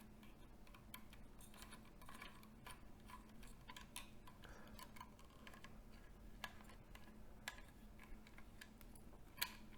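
Faint, irregular small clicks and ticks of a screwdriver backing small screws out of a projector's plastic optical assembly, with one sharper click near the end.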